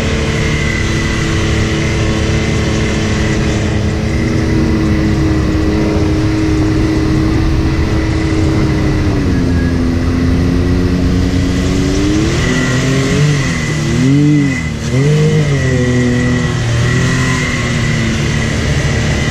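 Can-Am Maverick X3 Turbo side-by-side's three-cylinder turbo engine running under load through mud and water: a steady drone, the revs dropping about nine seconds in, then rising and falling several times from about twelve seconds on as the throttle is worked. A thin steady whine sits above the engine throughout, over a rush of tyre and water noise.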